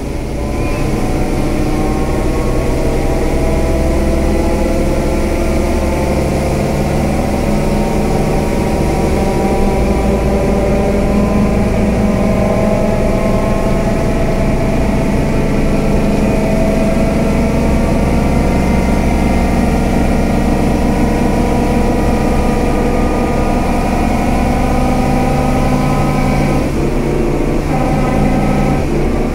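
Scania K320UA articulated bus engine running, its pitch slowly rising and falling as engine speed changes, with a change in the sound about ten seconds in and again near the end.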